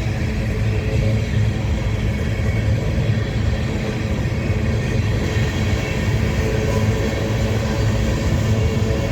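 Empty BNSF freight train rolling past with a steady low rumble.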